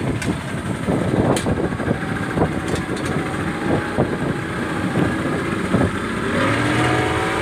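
Speedboat's outboard motor running amid wind and water noise, with repeated short knocks. About six seconds in the engine revs up, its pitch rising slowly.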